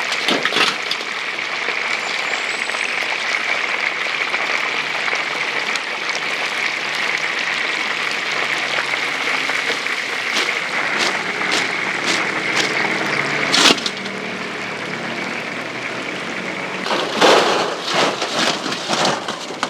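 Hot oil sizzling and crackling steadily in a deep fryer, with sharp knocks of cooking utensils now and then, a cluster of them near the end.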